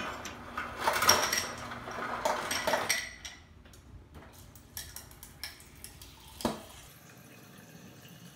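Refrigerator door dispenser filling a glass held under it: clinking and clattering against the glass for about three seconds, then much quieter, with a few light clicks and a single knock near the end.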